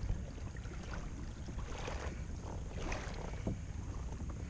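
Steady low wind rumble on a kayak-mounted camera's microphone, with faint water lapping against the kayak hull now and then.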